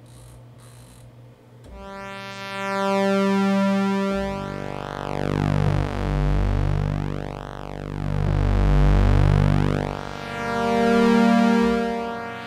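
Kurzweil PC3 synthesizer playing a sustained pulse-wave pad chord that enters about two seconds in. Its tone sweeps up and down twice, and the chord changes near the end.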